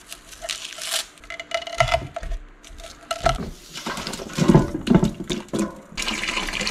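Kitchen knife chopping garlic cloves on a wooden cutting board, then the chopped garlic scraped off the board into a steel stockpot with a cluster of clattering knocks. About six seconds in, water starts pouring from a pitcher into the pot with a steady rush.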